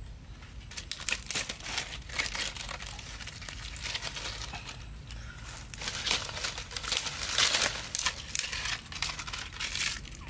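Dry leaves and twigs crunching and crackling as they are handled, in quick irregular crackles that grow thickest a little past the middle.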